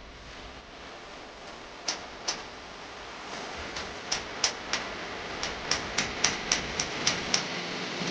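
A run of sharp clicks or taps over a steady hiss. They start about two seconds in, sparse at first, then come about three to four a second.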